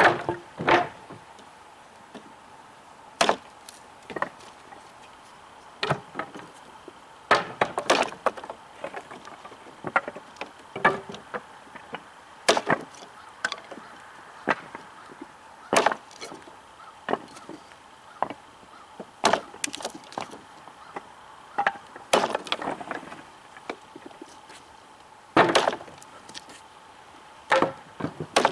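The blade of a cKc Voyager chopping knife striking into a 2x4 board in light, wrist-driven chops. The sharp wooden knocks come at uneven intervals, roughly one a second, some in quick pairs.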